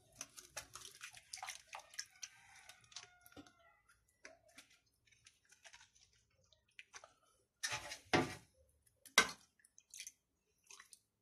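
Soft rustling and small taps of thin güllaç sheets being handled in a glass baking dish, then milk ladled from a steel pot and splashed over them, with two louder splashes about eight and nine seconds in.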